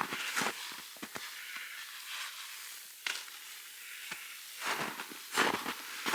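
Footsteps crunching underfoot, a few even steps starting near the end, after scattered light clicks and rustles.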